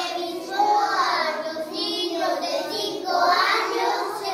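A group of young children singing together in unison, in held phrases with brief breaths between them.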